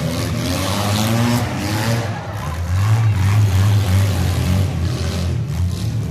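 Demolition derby cars' engines running and revving, their pitch rising and falling.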